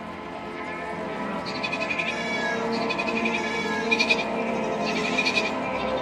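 Sheep bleating several times over soft sustained music that grows louder.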